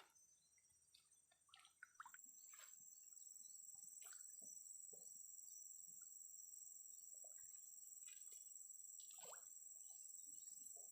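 Faint, steady high-pitched drone of insects, crickets or cicadas, which grows louder about two seconds in, with scattered faint small clicks and knocks.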